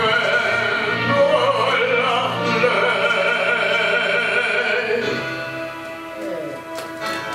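A male singer's voice in an operatic style, with wide vibrato, singing live into a microphone over orchestral backing music. The singing stops about five seconds in and the backing music carries on more quietly.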